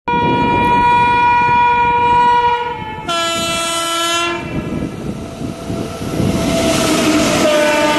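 Horn of an Indian Railways WAG-9HC electric locomotive: one long note of about three seconds, then a shorter, lower note. The horn sounds again as the locomotive and its tank wagons draw near, over the rising rumble and clatter of the train, and its pitch falls as the engine passes.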